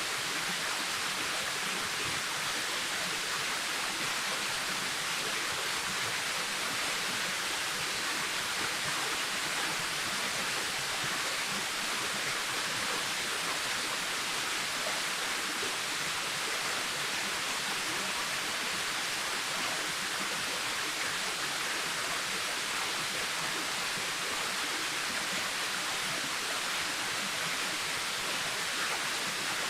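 Waterfall: a steady, unbroken rush of falling water, a hiss strongest in the upper range.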